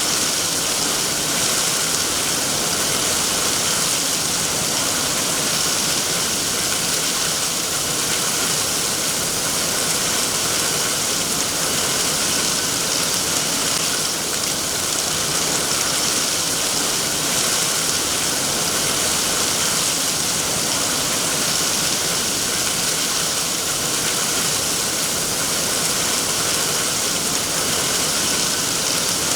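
Steady rainfall, an even hiss of drops with no breaks or single impacts.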